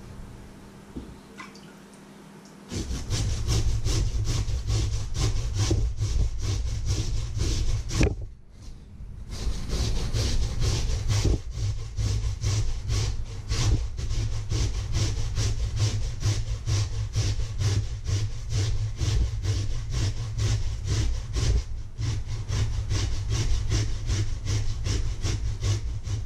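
Peeled potato being grated on a stainless steel hand grater into a metal bowl: rapid rasping back-and-forth strokes, starting a couple of seconds in, with a brief pause about eight seconds in.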